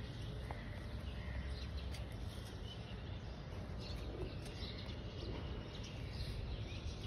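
Outdoor ambience: a steady low background rumble with faint bird chirps here and there.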